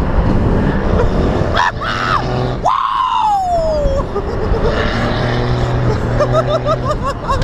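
Wind buffeting and road noise on a camera mounted outside a moving diesel pickup truck. About three seconds in, a person lets out a long yell that falls in pitch, and short repeated cries follow near the end.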